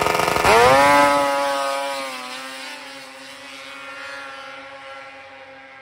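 Two snowmobile engines launching hard off the start line at full throttle, the pitch sweeping up sharply in the first second or so and then holding steady while the sound fades as the sleds pull away up the hill.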